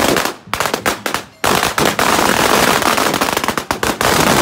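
A string of firecrackers going off in rapid, continuous bangs, with two brief pauses in the first second and a half.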